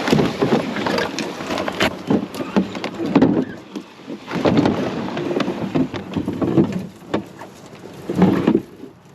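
Brush and dry vegetation rustling and crackling, with twigs snapping, as a canoe is walked and dragged through overgrowth on foot. It comes in surges every second or two, with many sharp cracks.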